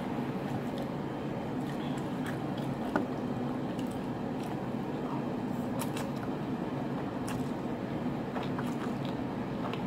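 Close-miked eating: scattered faint clicks of chewing over a steady low hum.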